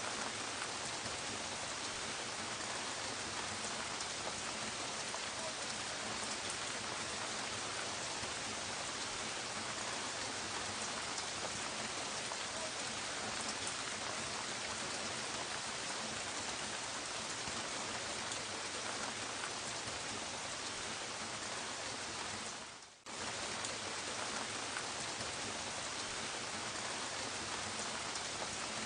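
Gentle steady rain, an even hiss of many small drops. Near the end it dips briefly, fading out and straight back in.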